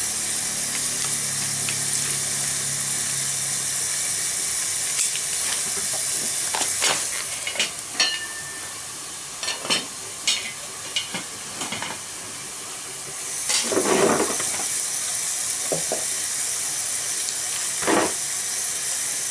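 Open wood fire burning under a pan with a steady hiss. Sharp clicks and knocks of wooden sticks are handled and pushed into the fire in the middle, and a louder rush of noise swells briefly about 14 seconds in.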